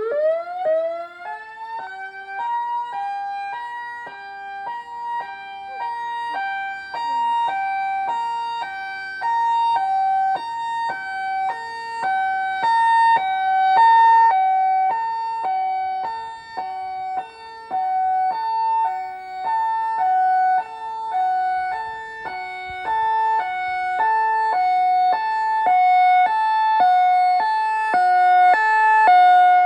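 EOWS 612 electronic outdoor warning siren sounding its alternating tone. It glides up to pitch at the very start, then switches between a high and a low note about every half second, swelling and fading in loudness every several seconds.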